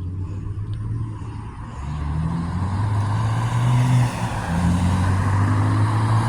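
A motor vehicle's engine running close by, its low hum shifting in pitch and getting louder from about two seconds in.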